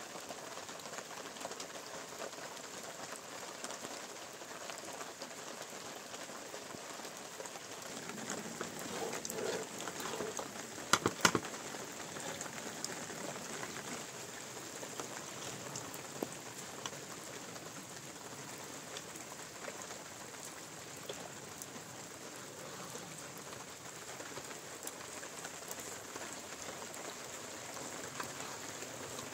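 Steady rain falling, with many small scattered drop clicks through the even hiss. A quick cluster of three sharp knocks about eleven seconds in.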